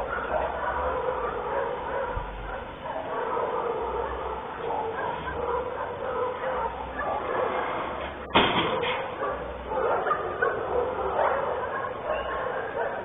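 Dogs barking and yipping against a steady background hiss with a faint hum, and a single sharp click about eight seconds in.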